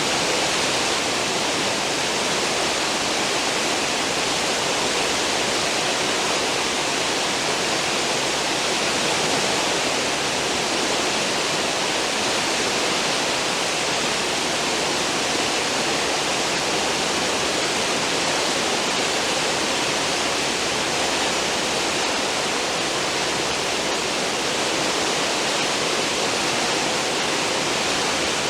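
Cruise ship's wake churning and rushing at the stern, a steady hiss of foaming water.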